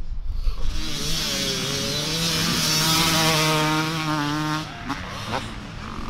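Motocross dirt bike engine revving on the track. The pitch rises and wavers, holds steady for a couple of seconds, then drops away with a quick blip or two near the end.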